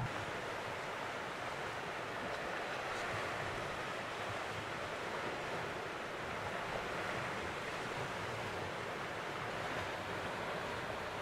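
Steady wash of ocean surf, an even rushing noise without distinct breaks.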